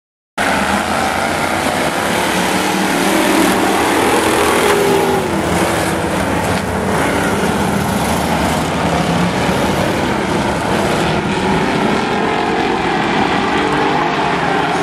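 Engines of a pack of demo derby cars and trucks racing on an oval track, several at once, revving up and down. The sound starts abruptly about half a second in.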